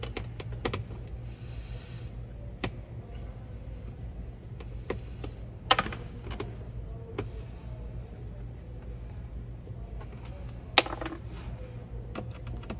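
Hand screwdriver backing Torx screws out of a car's center-console trim, heard as scattered light clicks and rattles of metal on plastic. Two sharper knocks stand out, one about midway and one near the end.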